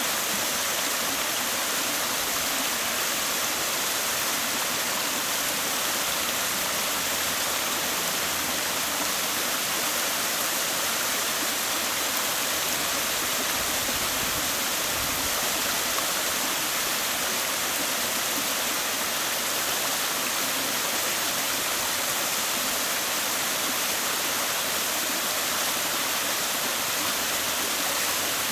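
Waterfall pouring steadily: an even rush of falling water, mostly hiss with little low rumble, unchanging throughout.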